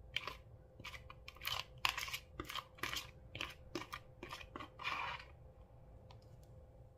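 Foam-bead slime crunching and squishing as a plastic spoon scrapes it out of a plastic tub into a glass dish: a run of short crackly bursts, about two a second, that stop a little after five seconds in.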